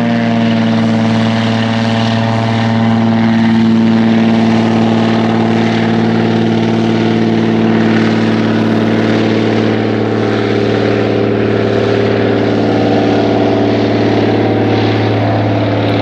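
Small propeller plane's engine running at full takeoff power as the plane leaves, a loud, steady drone.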